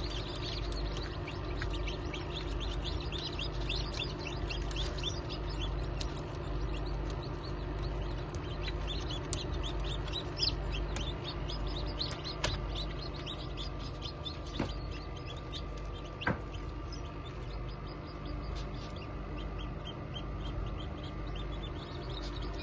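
Chicks peeping: many short, high chirps in quick succession, busiest in the first half, over a steady low hum.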